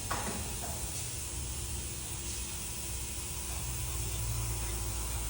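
Steady hissing background noise with a low hum underneath.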